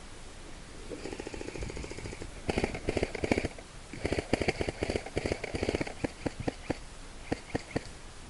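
Airsoft guns firing: a faint rapid-fire run, then two loud fully automatic bursts of fast clicks, then a string of single shots about two or three a second near the end.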